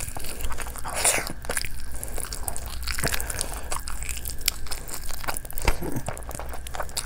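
A person biting into and chewing a saucy chicken drumstick: a run of short wet clicks and bites, with louder bites about a second in and again about three seconds in.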